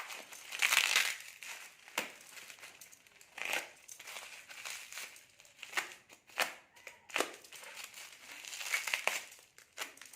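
Parcel packaging being handled and pulled open: irregular bursts of crinkling and rustling with a few sharp clicks.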